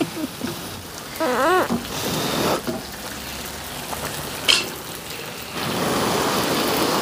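Potatoes and onions sizzling in a large frying pan, a steady hiss that swells louder near the end. About a second in there is a short wavering voice-like sound, and a sharp click a little past the middle.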